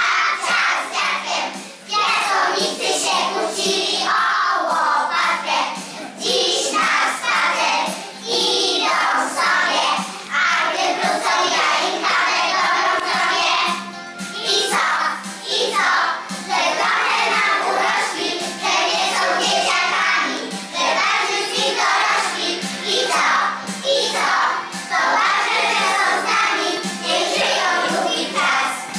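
A group of young children singing a song together, with brief pauses between phrases.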